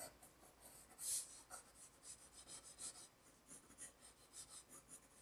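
Faint scratching of a colored pencil drawing short strokes on paper, the clearest stroke about a second in.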